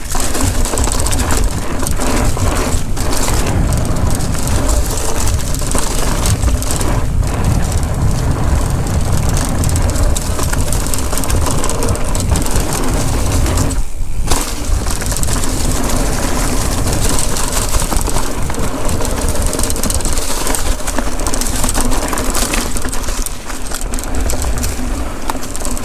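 Mountain bike rolling along a dry dirt singletrack covered in fallen leaves: the tyres crunch over the leaves and the bike rattles, under a loud, fluctuating low rumble of wind on the microphone. The noise briefly drops about halfway through.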